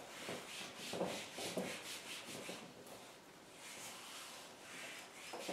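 Whiteboard eraser rubbing across the board's surface in quiet, repeated wiping strokes.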